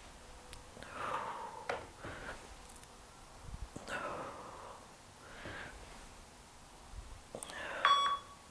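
A woman breathing hard in repeated heavy exhales as she works through crunch-style ab reps, with a few faint clicks. Near the end an interval timer gives a loud beep, the start of its once-a-second countdown to the end of the work interval.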